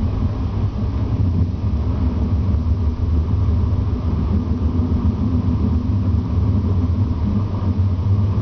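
Steady low rumble inside a CAF Urbos 3 low-floor tram as it runs along the track, heard from the passenger saloon.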